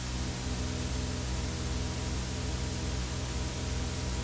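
Steady hiss with a low electrical hum underneath. This is room tone with no distinct event.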